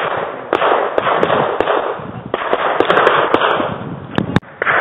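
Sporadic pistol shots on a shooting range: sharp cracks at irregular intervals, several bunched together near the middle and two louder ones near the end, over a steady rushing noise.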